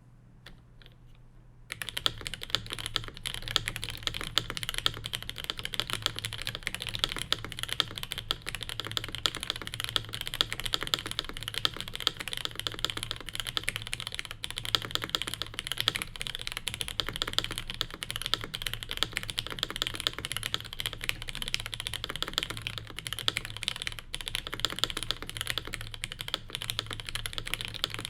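Fast, continuous typing on a Cherry G80-3000 mechanical keyboard with lubed and filmed Cherry MX Black linear switches, a dense stream of key clicks that starts about two seconds in.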